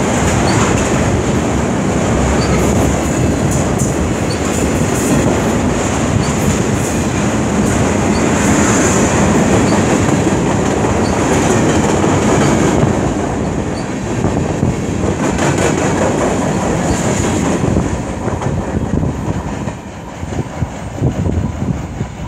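CN freight train of autorack and covered hopper cars rolling past close by: a steady rumble of steel wheels on rail with a regular clickety-clack of wheels over rail joints and a thin high steady whine. The sound drops away over the last few seconds as the final cars pass.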